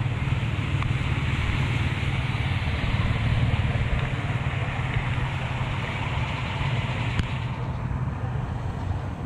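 Steady rush of floodwater flowing toward a street drain, over a low rumble of wind on the microphone. The higher rushing dims about three quarters of the way through.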